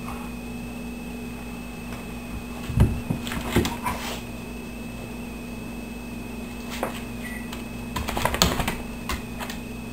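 Paws and claws of a Labrador retriever and a Siamese kitten tapping and scrabbling on a hardwood floor during rough play. The taps come in two clusters of quick clatter, about three seconds in and again near the end, over a steady hum.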